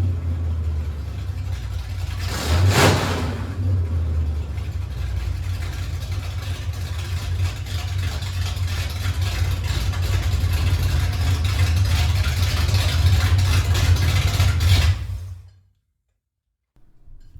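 Rebuilt Ford 390 FE big-block V8 running smoothly, with a quick blip of the throttle about three seconds in and then steady running. The engine sound stops abruptly about fifteen seconds in.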